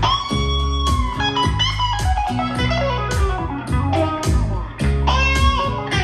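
Blues song playing through a Harman/Kardon Aura Studio speaker: electric guitar lead over bass and a steady drum beat, with a bent guitar note near the start and again about five seconds in.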